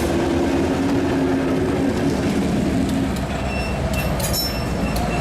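A train passing close by: a loud, steady rumble of wheels on rails, with a held low tone that fades out about three seconds in.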